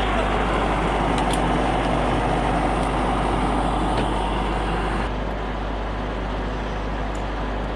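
Engine of a military vehicle running steadily, a low hum under a broad rushing noise, dropping a little in level about five seconds in.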